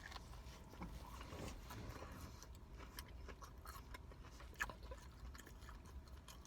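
Faint chewing of a spicy chicken club sandwich, with scattered soft clicks and one slightly sharper click a little past the middle.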